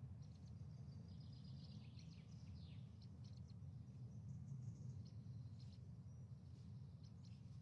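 Faint bird chirps, short high calls with a few falling notes, over a steady low hum.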